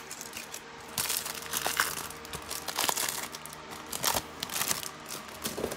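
A plastic wrapper on a Slam Attax Reloaded trading-card pack crinkling as the pack is torn open and handled. It is a run of sharp crackles that starts about a second in.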